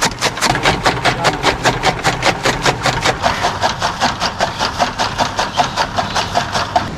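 Belt-driven chaff cutter chopping green fodder, its flywheel blades slicing in an even rhythm of about five cuts a second. The chopping stops abruptly near the end.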